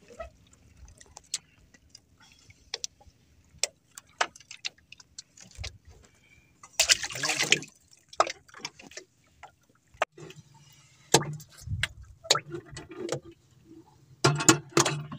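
Water splashing and sloshing in a boat's water-filled fish box, with scattered clicks and knocks and one louder splash about seven seconds in.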